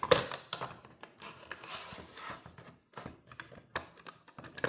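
Hard 3D-printed plastic engine parts being handled: a sharp click at the start, then scattered light clicks and rubbing.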